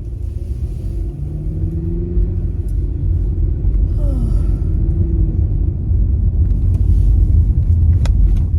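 Low road and engine rumble of a moving car heard from inside the cabin, growing steadily louder as the car picks up speed.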